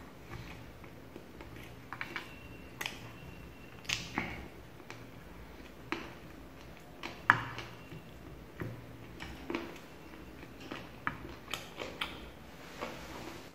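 Eating sounds as fingers pick tandoori chicken lollipop meat off the bone on a plate: scattered small clicks, taps and squelches at an irregular pace, with one sharper click about seven seconds in.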